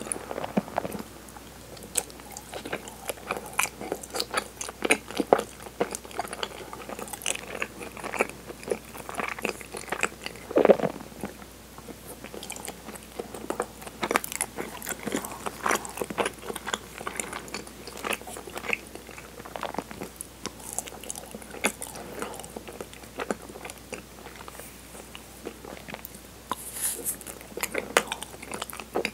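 Close-miked chewing of soft, chewy cinnamon-flavoured chigiri mochi: a steady run of sticky, wet mouth clicks and smacks.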